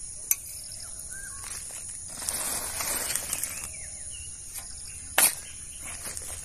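Soil mix being tipped into a woven plastic sack, with a rustling pour about two seconds in and a sharp knock about five seconds in. Birds chirp in the background.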